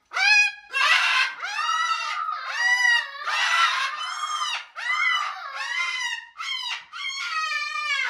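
Large parrots screaming: about a dozen loud calls in quick succession with hardly a break, each rising then falling in pitch.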